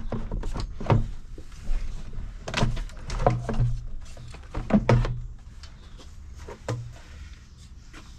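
Plastic air intake tube being worked loose and pulled off an engine: a series of irregular plastic knocks and thunks, thinning out near the end.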